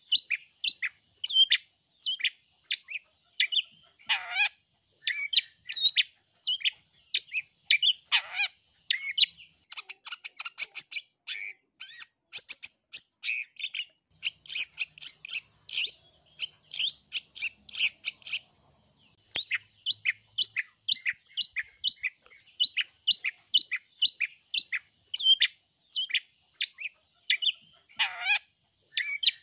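Long-tailed shrike (cendet) singing: a fast run of short chirping notes, two to three a second, thickening into a denser rapid chatter in the middle. A few lower notes slide downward about four and eight seconds in and again near the end.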